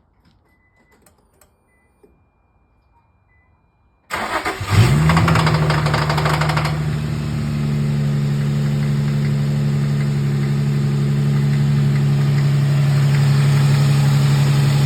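Infiniti G35's 3.5-litre V6 cold-starting: a few seconds of quiet with faint clicks, then a short crank, and about four seconds in the engine catches and flares up with a rapid ticking clatter for about two seconds before settling to a steady fast idle. The owner asks whether the knock is rod knock or piston slap.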